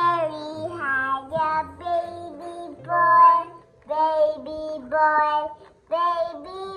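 A young child singing a melody in short phrases with some held notes, over faint background music with low bass notes.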